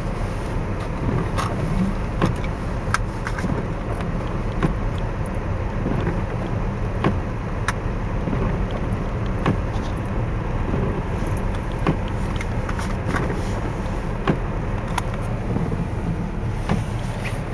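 Small pickup truck driving over a rutted, snow-covered street, heard from inside the cab: a steady low rumble of engine and tyres, with frequent irregular knocks and rattles as it bumps over the ruts.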